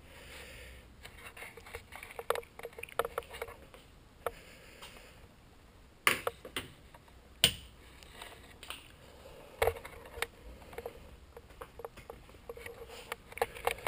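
Scattered light clicks and knocks from hands handling the cockpit of a carbon-fibre velomobile, with two sharper knocks about six and seven and a half seconds in as a hand reaches inside.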